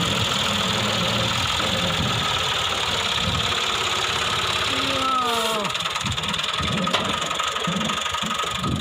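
Massey Ferguson 260 tractor's diesel engine running hard under heavy load as it strains to pull a trolley loaded with soil, the front wheels lifting. About five seconds in, the engine note sags sharply in pitch as it lugs down.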